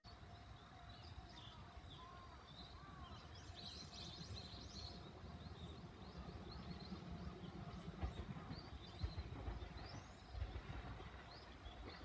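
Faint outdoor ambience: scattered bird chirps over a low, uneven rumble.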